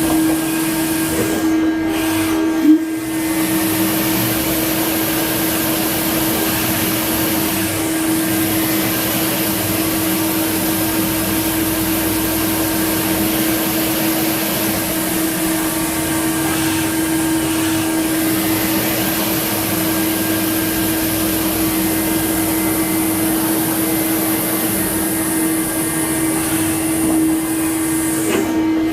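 Spinner TC-65 CNC lathe running: a steady machine hum with one constant tone over an even hiss. There is a brief dip and a sharp click about three seconds in.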